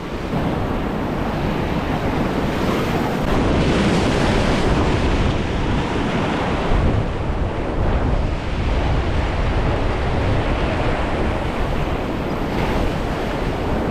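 Ocean surf washing in, with wind rumbling on the microphone.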